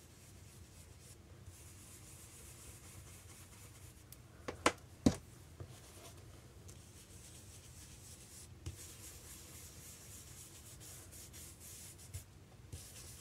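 Round ink blending brushes swishing and dabbing ink onto cardstock in soft rubbing strokes. About four and a half and five seconds in come two sharp clicks, the loudest sounds, with a few lighter knocks later as brushes are set down and loaded on an ink pad.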